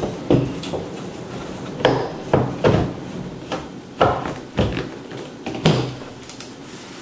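Irregular hard knocks and bumps, about seven in all, as a cooktop is worked down into and lifted out of a tight countertop cutout.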